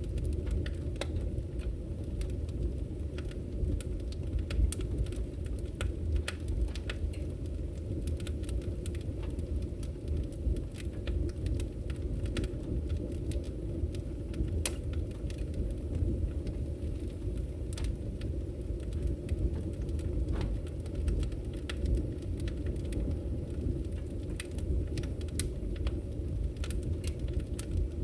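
Wood fire burning in a fireplace: a steady low roar from the flames with frequent, irregular sharp crackles and pops from the burning wood.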